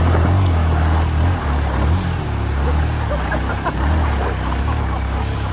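A vehicle engine running loudly and steadily, its pitch and level wavering slightly as the throttle changes.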